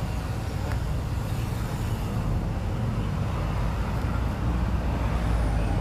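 Steady low rumble of background noise, with no distinct events standing out.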